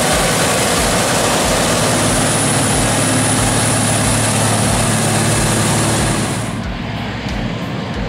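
John Deere 7760 cotton picker running while harvesting: a loud, steady machine drone with a low hum and a thin high whine. About six and a half seconds in, the whine cuts out and the sound becomes quieter and duller.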